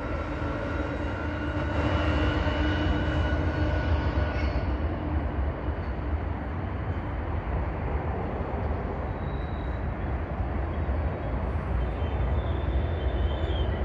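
Freight train passing: the diesel locomotives' engine hum is heard for the first four to five seconds. After that the freight cars roll by with a steady low rumble.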